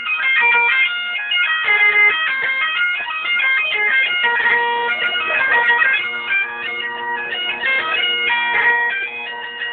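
Bagpipes playing a tune: a fast melody of quickly changing notes on the chanter over the steady hum of the drones.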